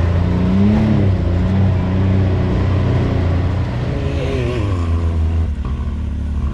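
Side-by-side UTV engine running, heard from inside the cab, a steady low drone whose pitch rises and falls with the throttle. About five and a half seconds in the sound changes abruptly, cutting to another engine sweep.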